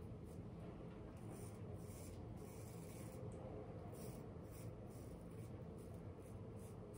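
Straight razor scraping through lathered long stubble on the neck in a series of short, faint strokes, over a steady low hum.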